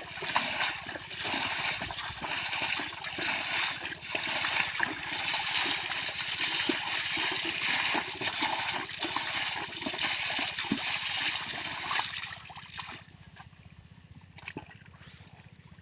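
Shallow water splashing and sloshing continuously, with many small splashes. It stops suddenly about thirteen seconds in, leaving only a few faint knocks.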